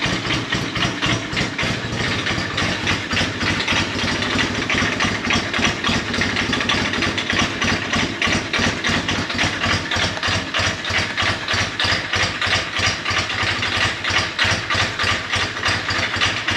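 Yamaha TX750's air-cooled parallel-twin engine idling steadily in neutral, an even run of exhaust pulses.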